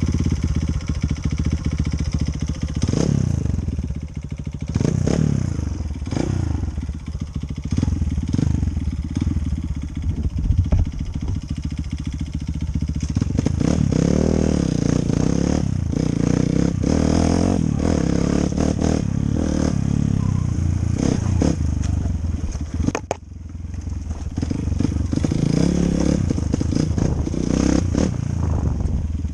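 Enduro motorcycle engine running and revving up and down, with knocks and rattles throughout; the sound briefly drops out about two-thirds of the way through.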